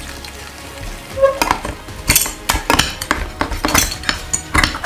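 Metal fork stirring and clinking against the inside of a heated tin can of ration food, the contents sizzling as they boil over an open flame. A low sizzle leads, then sharp, irregular clinks of the fork on the tin start about a second and a half in.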